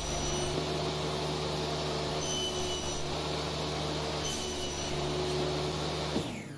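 Table saw running steadily while a blockboard panel is fed through the blade on a crosscut sled. The saw is switched off near the end and its sound drops away as the motor winds down.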